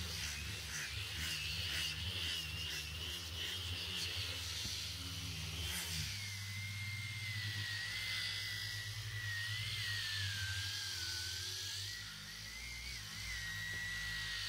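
Hand-held power sander with a sanding disc running against the face of a wooden board. Its high motor whine drops in pitch about six seconds in and then wavers up and down over a steady low hum.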